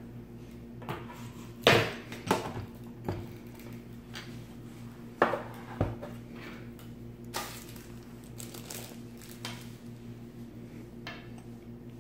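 Hard plastic parts of a Sizzix Big Kick die-cutting machine knocking and clicking as its handle and platform are handled on a wooden table: a few sharp knocks scattered through the first eight seconds or so, then only faint taps.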